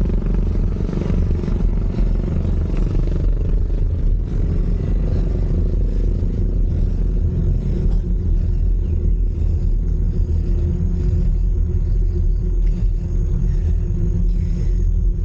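Steady low rumble of wind and road noise on a moving bicycle's camera microphone.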